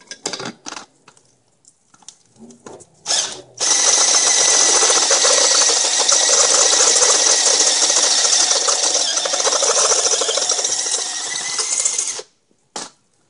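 Cordless drill running a step bit into a metal spark plug non-fouler held in locking pliers, widening its bore to take an oxygen sensor. The drill cuts steadily for about eight seconds, starting about four seconds in, after a few short knocks and clicks as the tool is set on the part.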